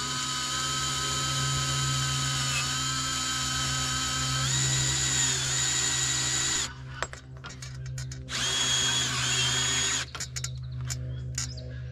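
Power drill boring a pilot hole through a metal awning bracket into the metal sail strip. It runs for about seven seconds, its whine stepping up in pitch twice, then stops. About a second and a half later it runs again for about two seconds.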